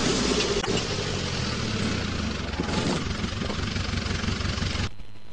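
Tractor engine running steadily, with a clear low drone of engine tones that gives way after about two seconds to rougher noise. Near the end the sound drops abruptly to a much quieter background.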